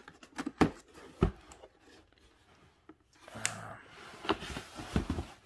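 Latches of a hard plastic tool case snapping open with a few sharp clicks in the first second or so, then the case lid opening and plastic-wrapped contents rustling, with a few knocks of plastic on plastic.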